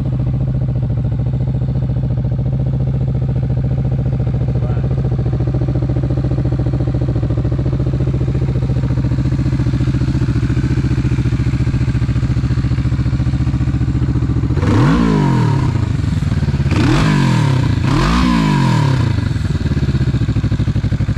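2022 Kawasaki Vulcan S's 649 cc parallel-twin engine idling steadily, then revved in three quick throttle blips about fifteen seconds in, the pitch rising and falling with each, before settling back to idle.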